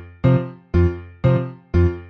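Background music: electric piano chords struck about twice a second in an even rhythm, each dying away before the next.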